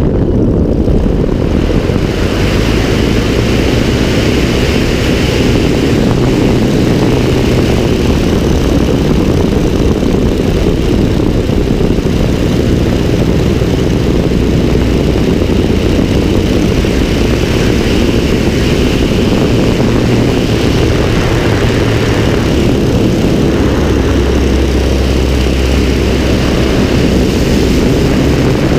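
Biplane's propeller engine running steadily in flight, heard from the open cockpit with heavy wind rush on the microphone.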